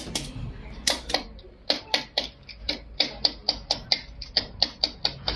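A red mallet tapping a metal tool pressed against a forearm. The sharp knocks come in a steady run of about four a second, after a short pause near the start.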